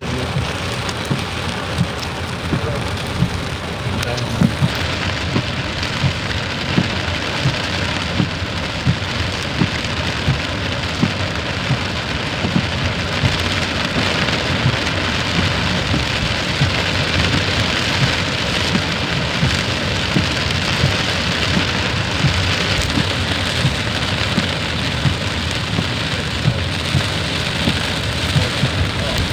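Steady, heavy rain falling, with individual close drops landing about once a second.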